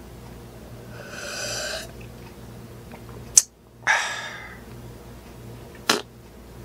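A person drinking from a plastic cup: a second or so of swallowing, a sharp click a little after three seconds in, then a short breathy sound that fades once the cup is lowered, and another click near the end, over a low steady hum.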